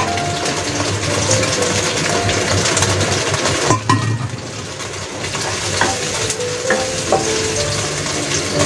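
Garlic sizzling in oil in a nonstick wok while a wooden spatula stirs it, with a few sharp knocks of the spatula against the pan.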